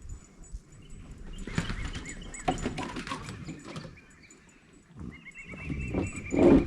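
Farm animal calls: short series of rapid, high-pitched pulsing cries, with a louder, lower call just before the end.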